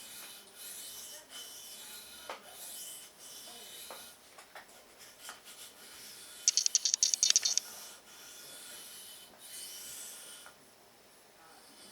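A Spyderco Delica 4's VG10 steel blade scraping back and forth across a whetstone in repeated sharpening strokes. About six and a half seconds in, a burst of rapid sharp clicking lasts about a second and is the loudest sound.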